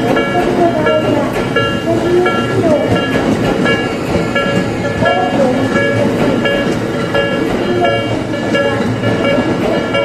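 Tokyo Metro 13000 series train running past at close range, a steady rumble of wheels on rail, while the level crossing's warning bell rings about twice a second.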